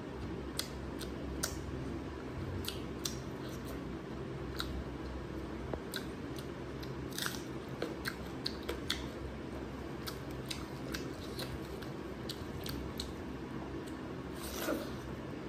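Close-miked mouth sounds of a person eating curry and rice by hand: wet chewing with many small sharp smacks and clicks, and a louder bite and mouthful near the end. A steady low hum runs underneath.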